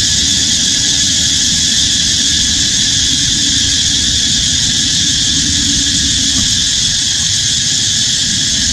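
Steady, high-pitched insect chorus filling the forest without a break, over a low rough rumble.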